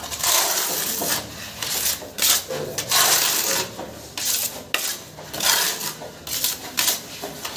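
Metal putty knife scraping across a plastered wall in repeated rough strokes, about one a second.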